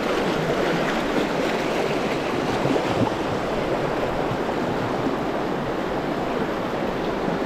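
Steady rush of a river rapid, the water running over rocks in a continuous roar-free hiss with no change.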